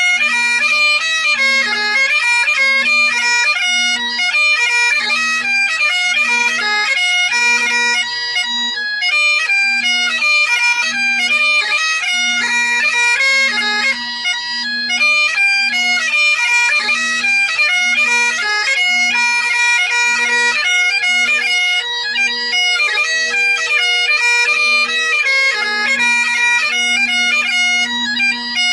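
Great Highland bagpipe played solo: the drones hold a steady tone under the chanter's melody, with quick grace notes between the melody notes and an even, regular pulse to the tune.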